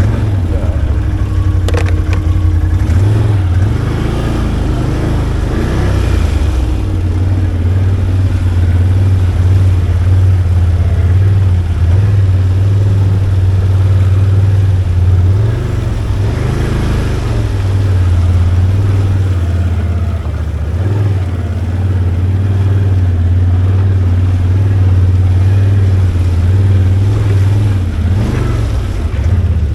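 V-twin ATV engine running at low trail speed, its note swelling and easing a few times with the throttle.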